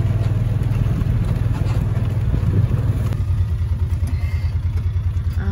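Utility vehicle's engine running at a steady low idle, its hum settling into an even, quick pulsing beat about halfway through.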